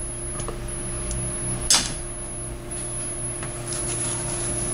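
Steady background hum, with one sharp click a little under two seconds in and a few faint small clicks.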